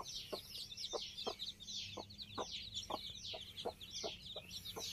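Country hen clucking steadily in short low clucks, about two to three a second, while her day-old chicks peep constantly in high, falling chirps around her.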